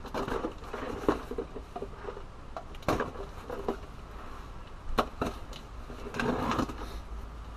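Small cardboard shipping box being picked at and torn open by hand, with scratching and rustling of cardboard and tape and a few sharp taps, two of them close together about five seconds in.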